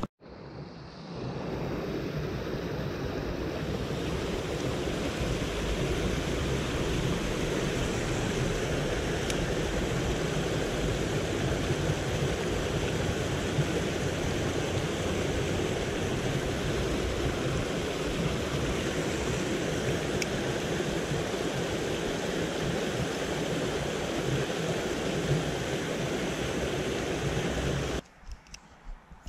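Water of a small creek cascade rushing steadily over rocks. It stops abruptly near the end.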